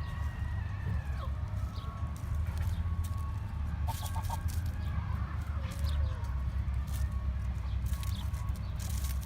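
Chickens clucking, with a quick run of four short notes about four seconds in, over a steady low rumble.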